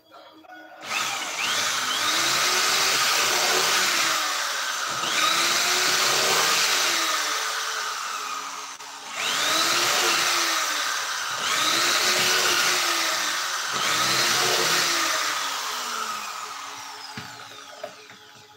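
Handheld power tool working plywood, running loud in several long stretches of a few seconds each, its tone sweeping up and down as it is moved, with a short dip about nine seconds in; it starts about a second in and fades out near the end.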